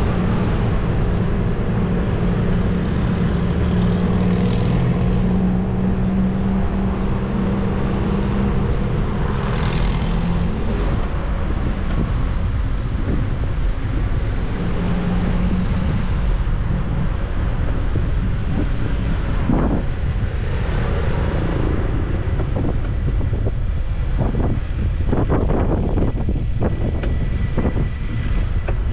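City street traffic heard from a moving bicycle, with wind rumbling on the microphone. A motor vehicle's engine hums steadily for the first ten seconds or so, and there are a few short knocks and rattles near the end.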